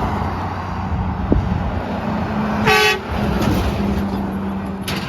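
A vehicle horn gives one short toot about three seconds in, over the steady running of passing road traffic.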